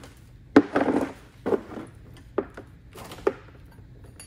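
Four metal clunks, roughly a second apart and the first the loudest, as a bare 1275 A-Series engine block is turned over on an engine stand.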